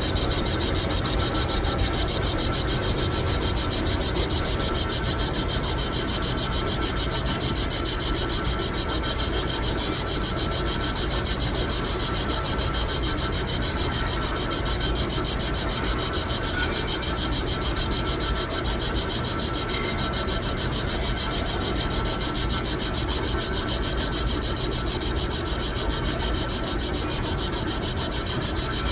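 Metal lathe running and cutting steadily: a continuous scraping noise with faint steady whine tones through it.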